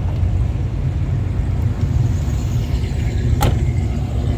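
Car engine running steadily at low speed, a continuous low rumble, with one sharp click about three and a half seconds in.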